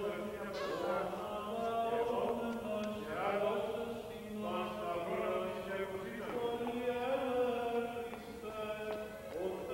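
Liturgical chant of an Orthodox baptism service: a voice chanting long, ornamented melodic lines over a steady low held note.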